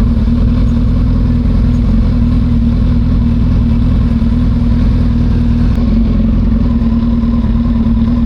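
Suzuki Hayabusa's inline-four engine running steadily at low, even revs, a constant hum with no revving.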